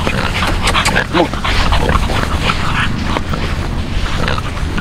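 Micro exotic bully puppies calling: many short, high-pitched cries in quick, irregular succession, over a steady low hum.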